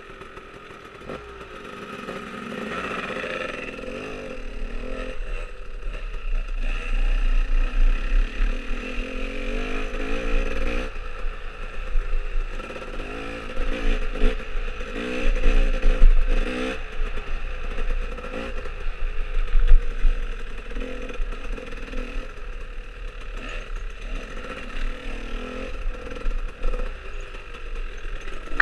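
Dirt bike engine revving up and down as it is ridden along a rough trail, the pitch rising and falling with the throttle, with wind buffeting the helmet-mounted microphone.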